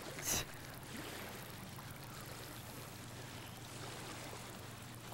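Faint lake water lapping and trickling around a wading angler, with a brief splash a few tenths of a second in, over a steady low hum.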